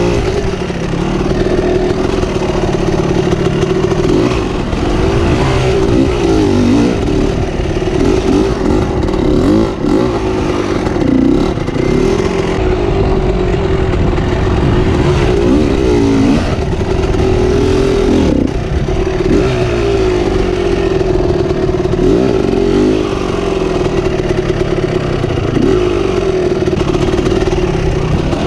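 KTM EXC 300 two-stroke dirt bike engine running hard under the rider, its pitch repeatedly dipping and climbing back every few seconds as the throttle is worked along the track.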